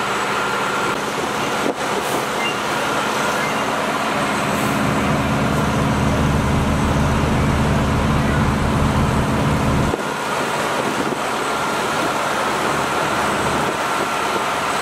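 Fire engine's engine running as it drives slowly past, loudest from about four seconds in and cutting off suddenly about ten seconds in, with another heavy vehicle's engine coming up near the end, over steady street noise.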